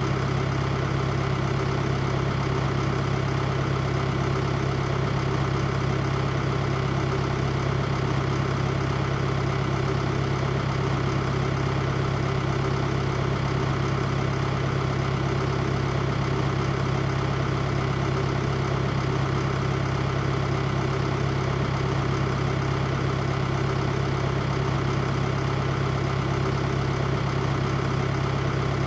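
Farm tractor engine running steadily at constant speed with a strong low hum, as when working a field or driving a straw baler.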